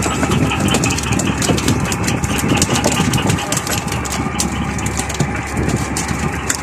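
Fishing boat's engine idling steadily, with frequent sharp clicks and knocks over it.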